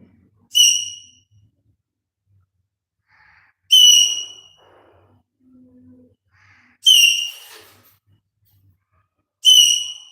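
Pet parrot giving four sharp, high-pitched whistles, about three seconds apart, each short and falling off quickly, with faint soft chatter in between.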